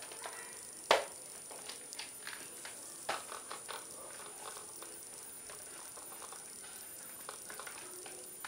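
Scattered clicks and light knocks of plastic toy blasters and gear being handled and fitted onto a backpack. The sharpest knock comes about a second in.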